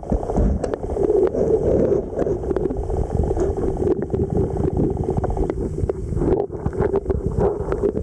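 Muffled rushing of river water heard through a submerged camera, with many small clicks and crackles.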